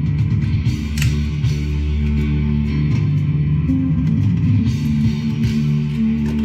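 Music led by guitars over a bass line.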